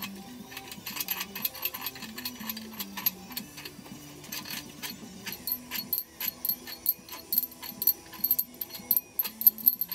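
Background music under frequent sharp metal clicks and clinks from valvetrain parts being lifted off a diesel cylinder head and handled. The clicks come thicker and louder in the second half.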